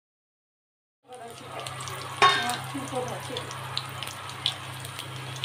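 Rajma vadas deep-frying in hot oil in a kadai: steady sizzling with scattered pops and crackles, starting about a second in, over a steady low hum. A sharp ringing clink about two seconds in is the loudest moment.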